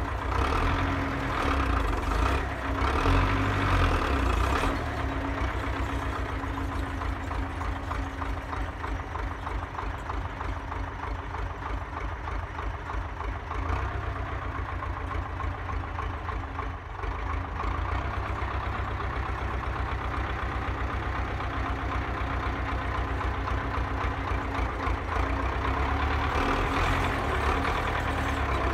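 Belarus tractor's diesel engine running steadily. It grows quieter through the middle as the tractor moves away, and louder again near the end as it comes back close.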